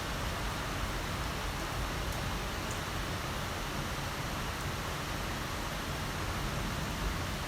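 Heavy rain falling steadily, a constant dense hiss of downpour with a few faint individual drop ticks.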